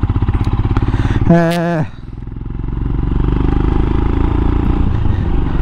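Royal Enfield Himalayan's single-cylinder engine running under way with a steady beat, heard from the rider's seat, with a short hummed voice about a second and a half in. Just after that the engine note drops away, then builds steadily again as the bike pulls on.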